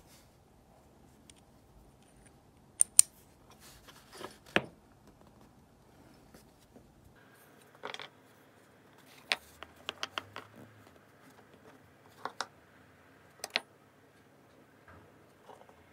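Small steel tool parts, a hex-shank bit holder and its metal sleeve, clicking and tapping against each other and being set down on a wooden workbench. Scattered sharp clicks: two loud ones about three seconds in, a quick cluster around ten seconds, and a few more near the end.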